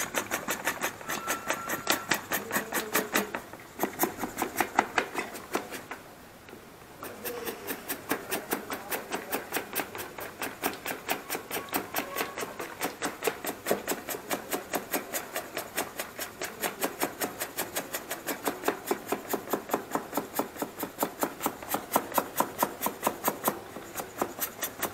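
Mini hand bicycle pump inflating a mountain-bike inner tube through the valve, worked in quick, even strokes, with a short pause about six seconds in.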